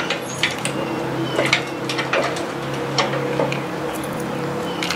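Homemade welded-steel lift frame pushed by hand over centre on its pivots, giving scattered metal clicks and clinks over a steady low hum.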